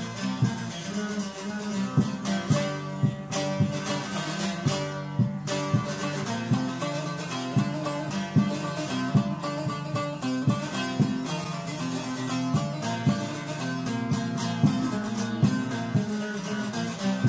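Instrumental break of a Kurdish folk song: a plucked string instrument playing a quick, rhythmic melody with regular strummed strokes.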